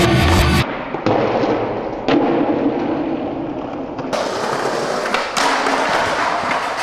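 A crackling, hissing rush of noise with scattered sharp clicks, loud at the start. In the last few seconds a skateboard rolls on concrete and knocks twice against a concrete ledge a little after five seconds in.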